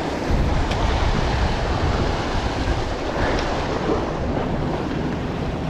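Surf washing and splashing against the rocks, with wind buffeting the microphone.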